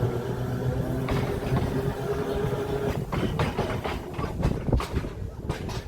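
Electric tram running along its track: a steady hum for the first few seconds, then a run of clicks and knocks from the wheels over the rails.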